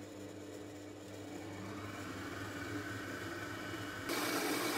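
Kenwood stand mixer running, its balloon whisk beating whipped-cream powder and milk toward a stiff cream: a steady motor hum that grows slowly and gets louder about four seconds in.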